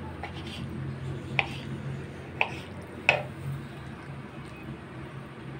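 Kitchen knife cutting raw boneless chicken into cubes on a wooden cutting board, with three sharp knocks as the blade strikes the board, about a second apart in the first half, over a steady low hum.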